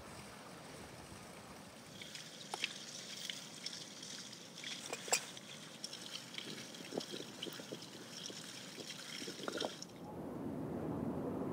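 Faint high-pitched crackling with scattered small clicks, then, about ten seconds in, a steady louder splashing of water running from a spout into a wooden barrel.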